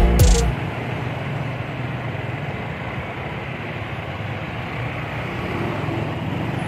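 Background music cuts off about half a second in, leaving the steady engine and road noise of riding a motor scooter through slow traffic.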